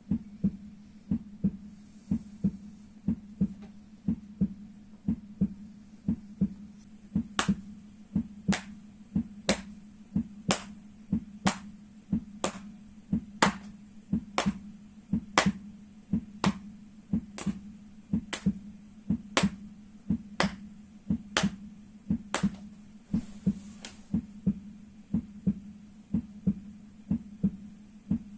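A steady heartbeat sound, its double beat about once a second. From about seven seconds in until about twenty-two seconds, sharp slaps land in time with it, about once a second: the feet being struck in the rhythm of the heart.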